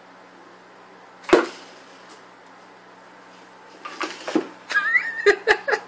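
A single sharp thump about a second in, then near the end a run of short sounds and a high voice with a bending pitch.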